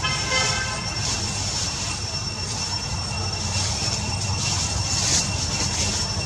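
Steady outdoor background noise: a low rumble with a thin, continuous high whine over it. A brief pitched call comes in the first second.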